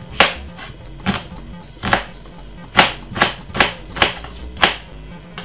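Knife chopping ripe plantain on a cutting board: about eight sharp strokes, spaced out at first and quicker later on, over faint background music.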